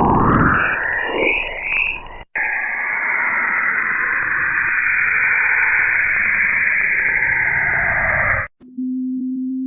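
Sonified space recordings (radio and plasma-wave data turned into sound), played as three clips cut together: sweeping whistle-like glides over hiss for about two seconds, then a steady hiss, then near the end a single steady low hum.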